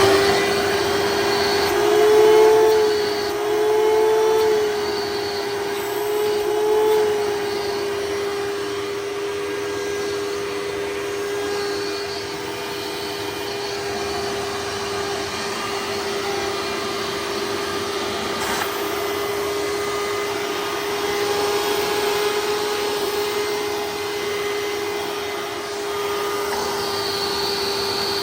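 2003 Hoover Soft & Light Supreme upright vacuum's 12-amp motor running with the hose attached: a very loud, steady whine. The whine wavers in pitch and loudness a few times in the first several seconds, then holds even.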